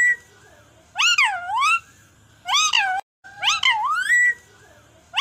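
A parrot calling over and over: gliding, wailing calls that rise and fall in pitch, coming in short groups about a second apart.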